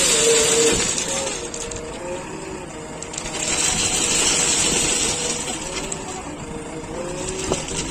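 Backhoe loader at work: its engine runs with a wavering whine, and two swells of rushing, scraping noise come and go, one near the start and a longer one from about three seconds in.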